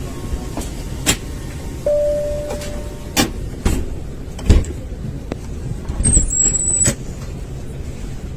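Steady low hum of an airliner cabin with a series of clicks and clunks, the loudest a heavy thump about four and a half seconds in. A brief steady tone sounds about two seconds in.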